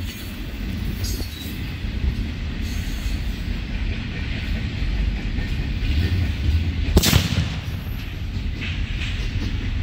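A ground salute firecracker goes off with a single sharp bang about seven seconds in, over the steady low rumble of a passing freight train.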